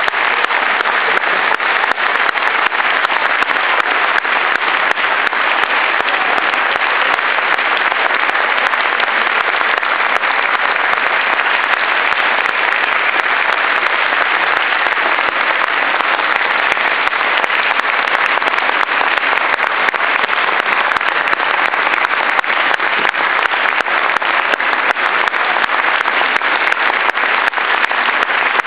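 Audience applauding: dense, steady clapping that does not let up.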